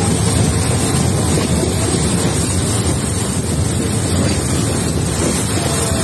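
Steady rushing noise from an open train window: wind buffeting the microphone, mixed with the roar of Dudhsagar Falls in full flow and the train's running noise.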